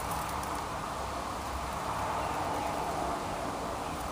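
Steady background noise: an even mid-pitched hiss over a low rumble, with no distinct calls or knocks standing out.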